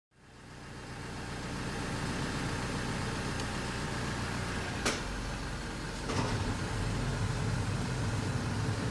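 Small truck engine running steadily, with two sharp clicks about five and six seconds in; after the second click the low running sound grows a little louder.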